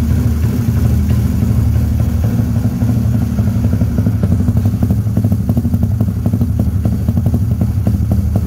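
Honda Pop's single-cylinder four-stroke engine idling steadily just after its first cold start of the day, exhaust pulses coming through an aftermarket Fusion Racing muffler in a fast, even clatter.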